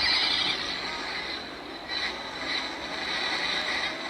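Built-in sound chip of a 1/24 scale Ford Raptor 6x6 diecast toy playing a recorded vehicle engine sound effect through its small speaker. The sound is thin, with little bass, and rises and falls a little in level.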